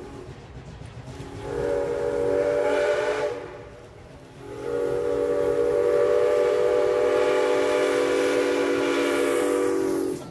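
Steam locomotive 7470's whistle blowing a blast of about two seconds, then a long held blast that cuts off sharply, over the rumble of the passing freight train. A short-then-long pair like this ends a grade-crossing whistle signal.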